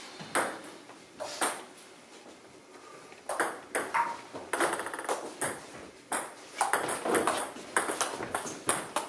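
Table tennis ball clicking off bats and the table: a couple of lone bounces near the start, then from about three seconds in a quick rally of hits and bounces, several a second.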